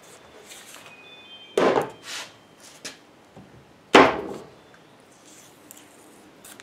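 Two heavy thuds about two and a half seconds apart, with a few lighter knocks between them, as the freshly painted cast-iron head of a Wells-Index Model 40 milling machine is handled and tipped onto its side on a wooden bench top.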